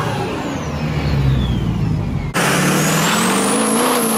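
Turbodiesel V8 of a Chevrolet Silverado HD pickup accelerating past, the engine note rising and falling with a high turbo whistle over it. About two seconds in the sound cuts to a second pass, where the whistle climbs and then drops away as the truck goes by.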